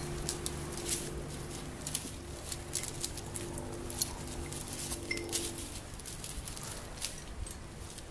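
Heavy 3/8-inch steel chain rattling and clinking as it is handled and wrapped around a log, with many sharp metallic clinks, loudest about five seconds in.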